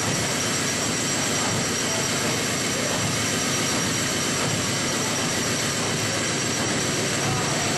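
Liberty ship's triple-expansion reciprocating steam engine running steadily under way, heard in the engine room as a dense, even mechanical noise with thin steady high whines on top.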